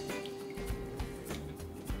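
Soft background music: a held note with a few light, low beats.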